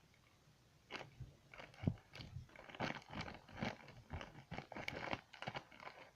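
Beaded slime being squished and kneaded by hand, giving a run of irregular small clicks as the beads in it are pressed, starting about a second in.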